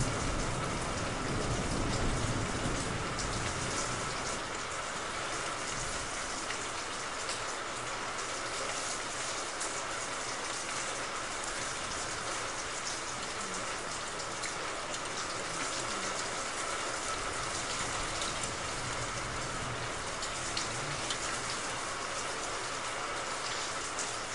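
Heavy rain falling, a dense, steady hiss of drops on surfaces. A low rumble of thunder dies away over the first few seconds.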